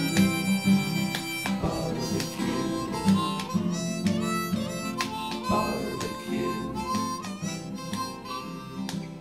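Music with a harmonica playing held and bending notes over a plucked guitar.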